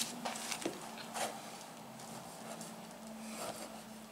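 Quiet handling sounds: a few faint scrapes and light taps as a chef's knife peels an avocado on a plastic cutting board and a spoon spreads sushi rice, over a faint steady hum.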